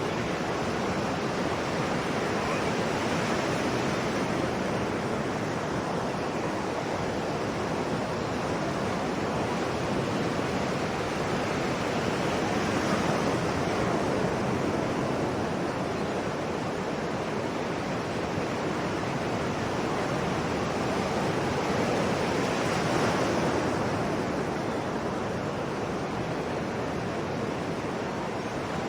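Sea waves washing onto a shore in a continuous rush of surf that swells and eases slowly, with the strongest surges about 13 and 23 seconds in.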